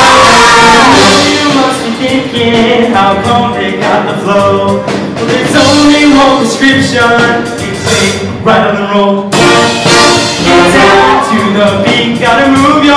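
Live band with a brass section playing a rhythmic, loud instrumental passage for the show choir, with audience cheering dying away in the first second.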